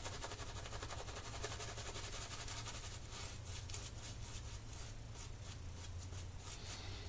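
Shaving brush whisking shaving cream in a lather bowl with a little added water: quick rhythmic swishing strokes that turn slower and fuller about three seconds in.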